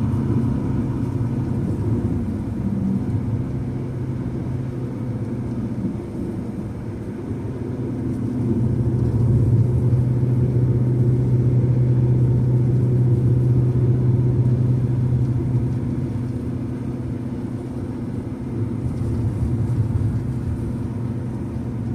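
An engine running with a steady low hum that grows louder for several seconds in the middle, then settles back.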